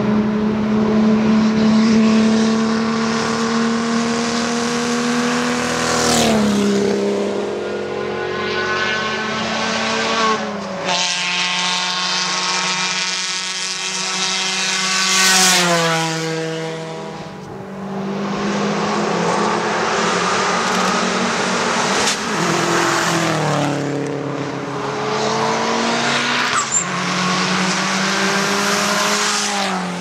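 Hill-climb race car engine at high revs, its pitch climbing through the gears and dropping sharply several times, loudest about 6 and 15 seconds in.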